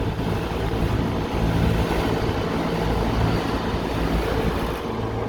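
Rooftop HVAC unit running steadily, a low machine hum with its fans on. The compressor does not start: the contactor is not pulling in even after the head pressure reset.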